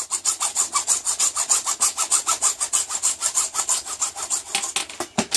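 A hand saw cutting through a piece of stock with rapid, even back-and-forth strokes, about seven a second. The strokes stop with a sharp knock near the end.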